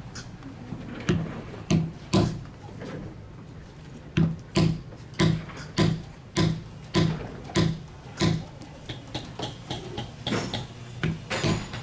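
Repeated sharp taps of a mallet striking a leather-stamping tool, tooling a pattern into leather laid on a stone slab. The strikes come about two a second, turning lighter and quicker near the end.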